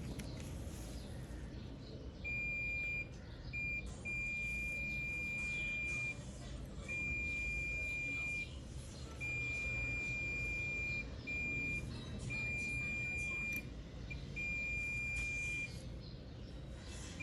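Multimeter continuity beeper sounding a steady high tone in about nine irregular stretches, from a short blip to about two seconds each: the meter signalling a near-zero-resistance path while probing a laptop motherboard for a short.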